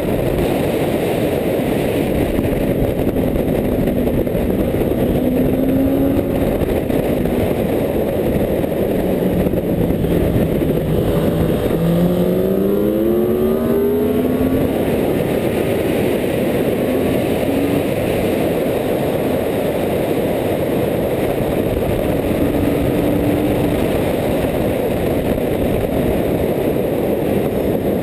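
Wind buffeting an onboard camera on a sport motorcycle at track speed, over the engine's running note. About halfway through, the engine note climbs as the bike accelerates hard.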